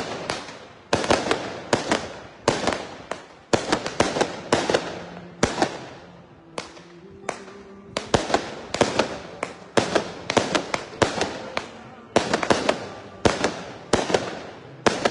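Strings of firecrackers going off: bunches of rapid sharp bangs, several a second, each with a short echoing tail, thinning out for a couple of seconds midway before coming thick again.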